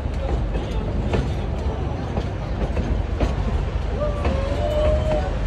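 Narrow-gauge passenger train rolling along, heard from an open car: a steady low rumble with irregular clacks from the rails. About four seconds in comes a drawn-out squeal of the wheels, lasting about a second.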